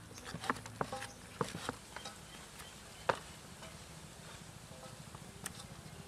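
Irregular light knocks and clicks: several in quick succession over the first two seconds, then a sharper single knock about three seconds in and another about five and a half seconds in.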